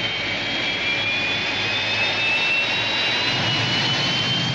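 Science-fiction sound effect of an Eagle spacecraft's engines: a steady jet-like rush with a high whine that rises slowly in pitch.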